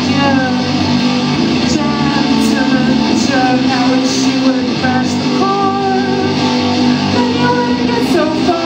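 A song: a singing voice over guitar accompaniment.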